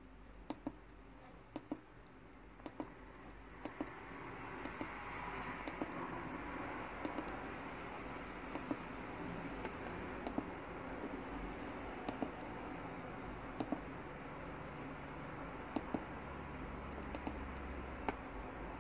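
Small push buttons on a TS100 soldering iron clicking as they are pressed and released, mostly as quick double clicks about once a second while its settings menu is stepped through. A steady hiss comes up about four seconds in and stays under the clicks.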